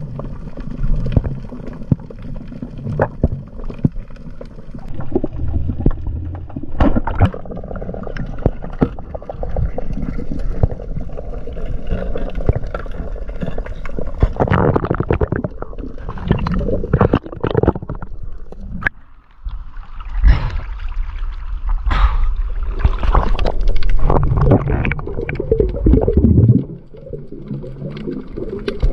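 Muffled underwater water noise picked up by a diver's camera: low gurgling and sloshing with irregular knocks and swells as the spearfisher moves through the water.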